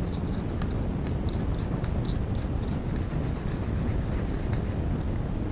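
Toothbrush bristles scrubbing dust out of an Asus K53 laptop's plastic cooling-fan housing: a quick, irregular run of light scratchy ticks over a steady low rumble.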